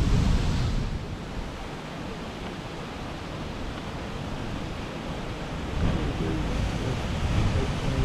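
Heavy ocean surf breaking against lava-rock cliffs. A deep rumble from a wave fades within the first second, the water washes more quietly, and another wave rumbles in about six seconds in.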